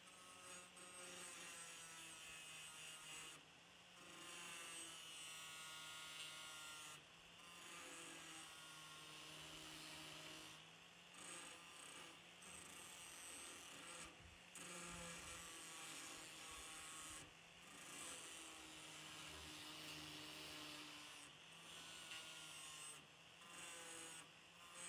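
Angle grinder with an abrasive disc grinding rust off a steel kukri blade: a faint, steady motor whine with a grinding hiss, broken by short gaps every few seconds.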